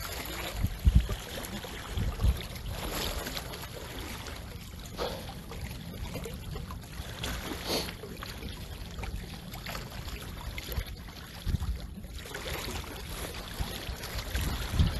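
Steady low rumble of wind on a phone's microphone, with a few low thumps and rustles near the start from the phone hanging on a neck strap and rubbing against clothing.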